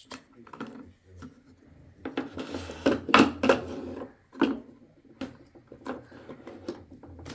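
Irregular clicks, taps and light knocks of makeup cases and small items being handled and put back into a makeup table's drawers.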